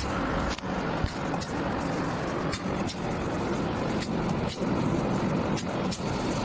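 Automated cartridge oil-filling machine running: steady machine noise with sharp clicks every half second to a second as the filling heads work.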